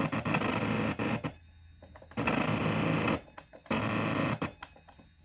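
Circuit-bent Tyco Blue's Clues toy refrigerator giving out harsh, glitchy electronic buzzing through its small speaker, in three bursts of about a second each broken by short gaps with scattered clicks.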